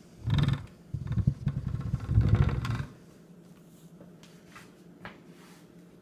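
Mahlkönig K30 Vario espresso grinder's motor switched on from its front buttons, running in a short burst and then for about two seconds before stopping.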